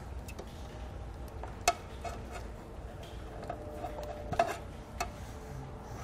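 Handheld wire stripper cutting and pulling insulation off the ends of an automotive wire: a few sharp clicks, the loudest about a second and a half in, two more near the end, with faint handling noise between them.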